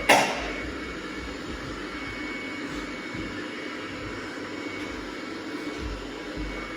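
Robot vacuum cleaner running with a steady hum and a faint high whine, with one sharp loud knock right at the start.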